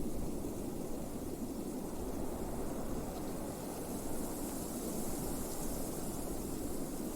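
Blizzard wind blowing steadily: a low, even rush, with a fainter high hiss that grows a little stronger about halfway through.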